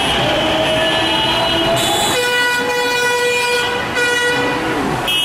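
A pitched horn-like tone held steady for about two and a half seconds from about two seconds in, then sliding down in pitch as it stops, over steady street and crowd noise.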